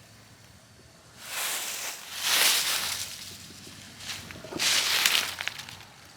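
Dry grass and weeds rustling and crackling in three bursts of about a second each: the first about a second in, the next right after, and the last near five seconds in.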